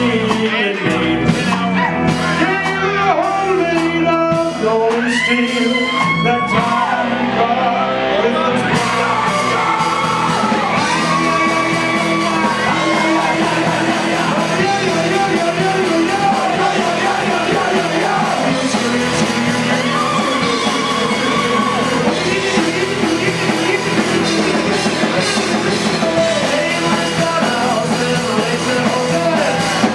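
Live punk rock band playing loud, with electric guitar, bass and drums, and yelled vocals over the music.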